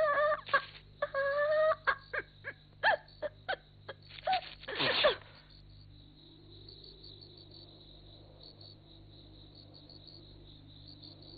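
Cartoon sound effects of a comic snore: a loud wavering whistled tone, then a quick run of short pops and a loud falling swoosh about five seconds in. After that only faint night ambience remains, with a soft regular high chirping like insects.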